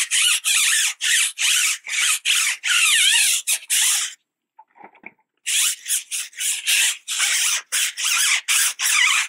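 Stiff-bristled tire brush scrubbing a wet, degreaser-coated rubber tire sidewall in quick back-and-forth strokes, about three a second, with a pause of about a second a little before the middle.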